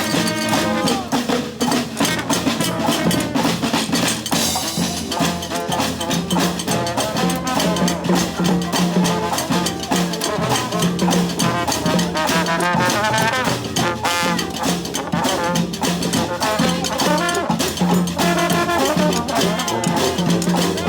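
Brass band playing live: horns carrying a wavering melody over a busy drum beat, with a low bass note pulsing steadily underneath.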